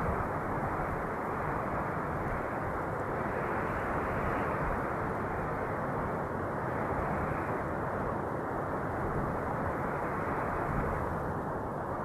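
Wind blowing: a steady, deep rushing noise that slowly swells and eases, with no whistling tones or gusty hiss.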